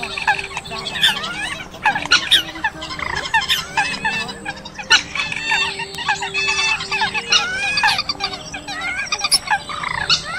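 A dense, overlapping chorus of waterbird calls: Eurasian coot calls mixed with other rail calls in an edited lure recording, with many short rising and falling notes layered on top of one another.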